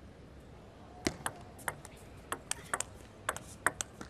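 Table tennis rally: the plastic ball clicks sharply off rackets and table, starting about a second in with the serve. About a dozen clicks follow in a quickening exchange.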